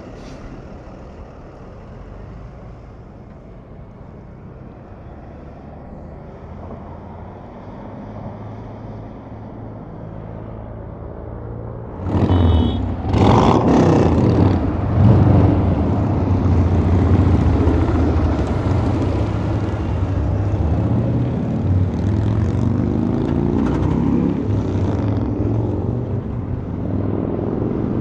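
Semi trucks on a highway: a steady low diesel hum, then about twelve seconds in a truck gets suddenly much louder with a short sharp burst of noise, and its engine stays loud through the rest, its pitch sliding a little near the end.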